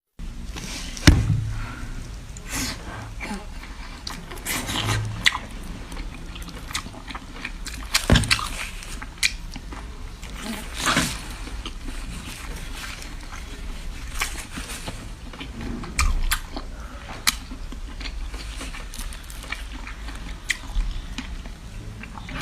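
A person chewing and biting seafood close to the microphone: irregular wet clicks and smacks, a few sharper and louder ones standing out.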